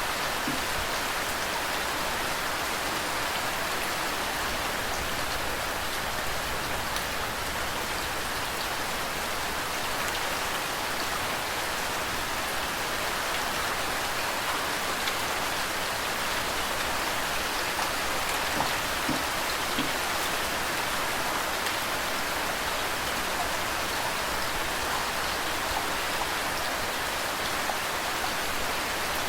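Steady rain falling with running water: an even hiss with scattered faint drop ticks.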